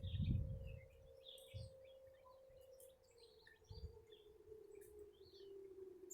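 Distant outdoor tornado warning siren: a faint steady tone that slowly slides lower in pitch, with birds chirping over it. A low rumble in the first half second is the loudest sound.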